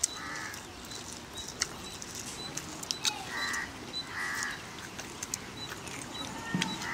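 A crow cawing, short harsh caws heard about four times with gaps of one to three seconds, over scattered faint clicks.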